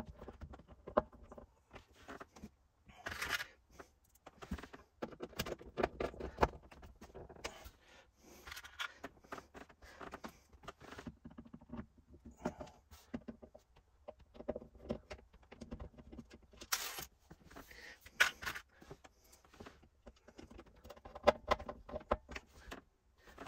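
Small screws being driven by hand with a magnetic screwdriver into a plastic socket surround, making irregular clicks, scrapes and small rattles.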